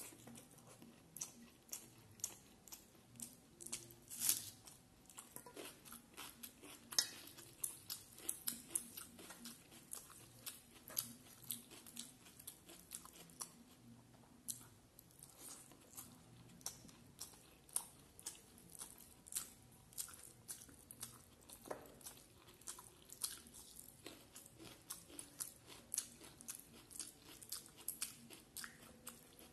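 A person chewing a mouthful of rice and curry close to the microphone, with many short mouth clicks a few times a second.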